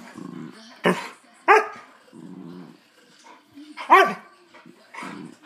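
Small terrier play-fighting with a larger dog: low growling in stretches, broken by sharp barks about a second in, at a second and a half, and a louder one about four seconds in.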